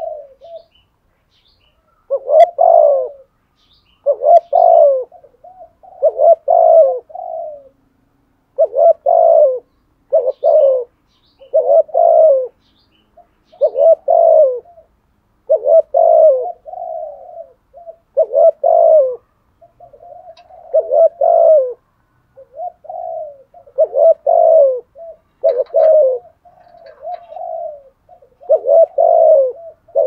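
Spotted dove cooing over and over, a short low coo phrase every second or two starting about two seconds in: the contest or challenge coo ('gù đấu') of a male dove.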